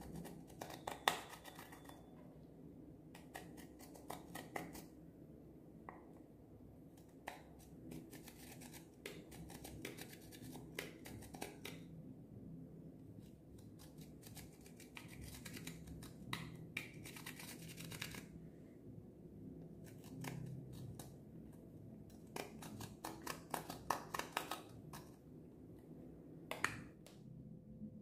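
Metal-tipped dotting tool scraping and picking at pressed glitter eyeshadow in a plastic makeup palette: faint groups of quick scratchy clicks with short pauses between them.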